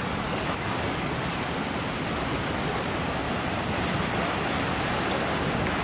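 Steady rush of small waves breaking and washing up a sandy beach.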